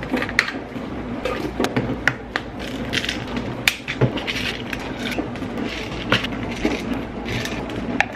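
Plastic vitamin bottles handled on a stone countertop: caps clicking and twisting, bottles knocking down on the counter, and pills and gummies rattling inside, in a string of sharp clicks and short rattles.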